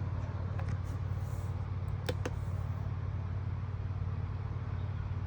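A steady low mechanical hum, with a few faint clicks about two seconds in.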